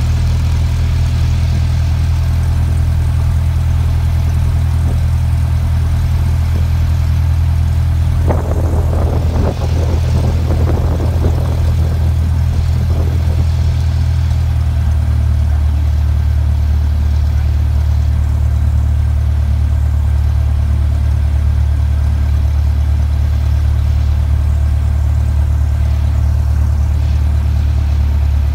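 Cessna 182's piston engine droning steadily at low power, heard from inside the cabin as the plane rolls along the ground after landing. A short patch of irregular rattling noise comes about eight seconds in and fades by about twelve seconds.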